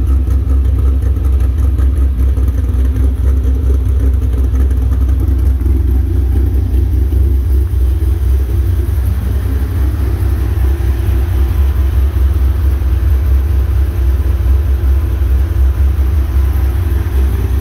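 A 2009 Pontiac G8 GXP's 6.2-litre V8, fitted with an F35 camshaft, BBK headers and a Magnaflow mid muffler, idling steadily. Its exhaust gives a deep, loud rumble with no revving.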